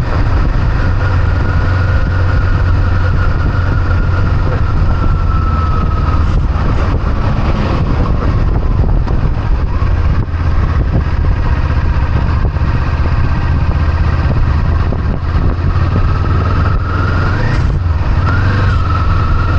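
Kawasaki Eliminator SE motorcycle running steadily, a low engine hum under a constant rush of noise.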